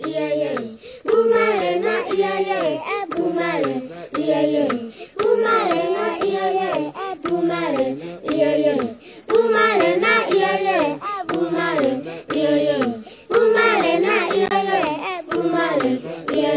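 African pygmy group singing: several voices singing short repeating phrases together, over a steady run of hand claps.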